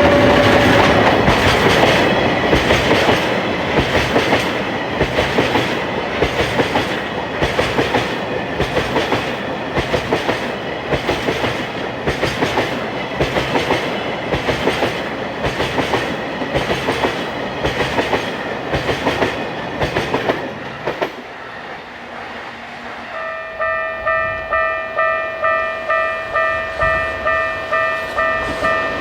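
A train running past the level crossing, its wheels clacking over the rail joints in a steady rhythm, fading away about two-thirds through. Soon after, the Japanese crossing warning bell rings, an even electronic ding repeating about twice a second.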